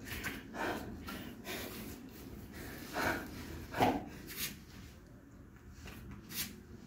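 A man breathing hard in short, heavy breaths, the loudest about three and four seconds in: catching his breath after a set of floor exercises.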